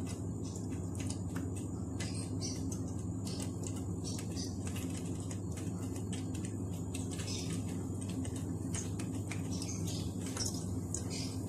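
Potato-onion pakora batter frying in hot oil in a frying pan: a light, irregular crackle of many small pops and spits, over a steady low hum.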